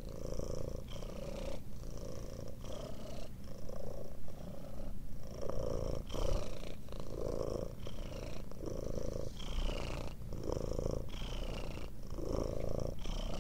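A cat purring steadily, in even cycles of under a second with a short break between each.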